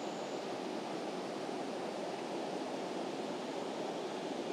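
Mountain stream running over rocks, with water spilling over a small weir: a steady rush of water.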